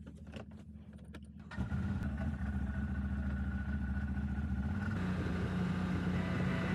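CFMOTO CForce 1000 quad's V-twin engine: at first a low hum with a few knocks, then about a second and a half in the engine comes in much louder and keeps running as the quad moves off.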